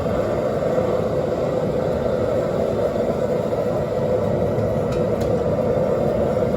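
Propane gas forge burner running, a steady rushing noise that does not change, with a faint tick or two about five seconds in.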